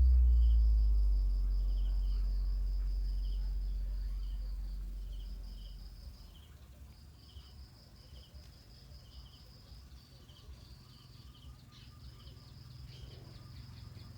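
Low bass test tone from a passive JBL 5-inch speaker, sliding downward and fading out over the first six seconds. After it, only faint crickets chirping remain.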